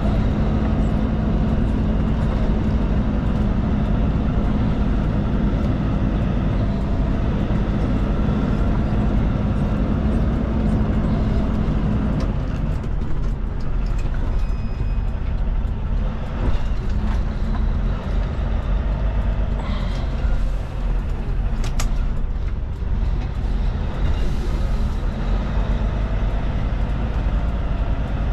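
Heavy truck's diesel engine running, heard from inside the cab as the truck moves slowly; about twelve seconds in the engine note drops as a gear is changed. A click and a brief hiss come later.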